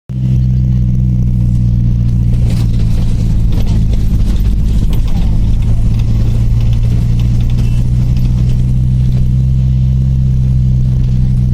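Bus engine running at a steady speed, a constant low drone with a faint hiss above it.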